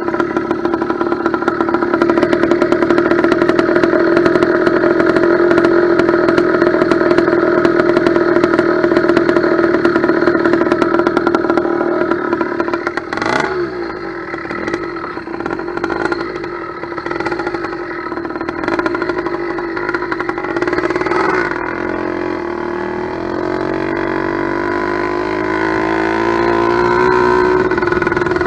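Two-stroke motorized-bicycle kit engine (about 90cc steel-bore cylinder on an 80cc China-made bottom end) running steadily at a fast idle. Its speed drops sharply about halfway through, then runs lower and climbs slowly toward the end.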